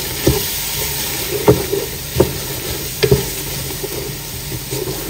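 Wooden spatula stirring and scraping thick Khmer curry (kari) mixture in a large aluminium pot, knocking against the pot a few times, over a steady sizzle of the mixture frying.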